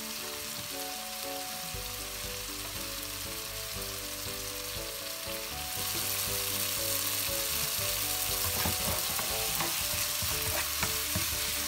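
Chopped tomatoes sizzling in oil in a nonstick frying pan over high heat, cooking down until soft. The sizzle grows louder about halfway through. In the second half a spatula stirs them, scraping and tapping against the pan.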